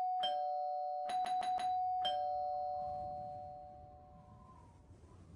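Two-note doorbell chime rung over and over: a ding-dong, then four quick dings in a row, then a last lower dong that rings out and fades.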